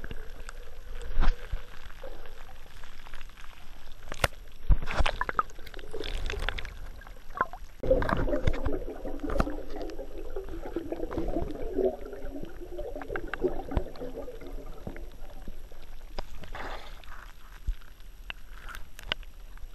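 Water sloshing and gurgling around a camera held underwater and at the water surface, with scattered knocks and clicks of handling. A longer stretch of bubbly gurgling comes in the middle.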